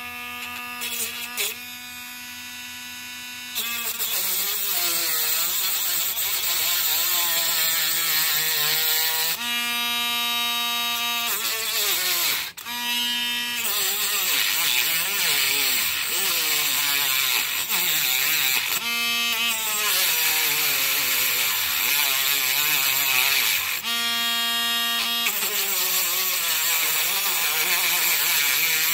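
Small hand-held rotary tool with a diamond cutting wheel whining as it cuts slots into a string trimmer's carburetor adjuster screws. Its pitch wavers and sags while the wheel bites, and it runs at a steady pitch in short spells when the wheel is lifted off.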